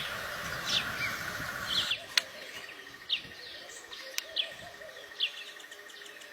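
Small birds chirping: short, high calls about once a second. A steady buzz underneath stops about two seconds in, and two sharp clicks follow.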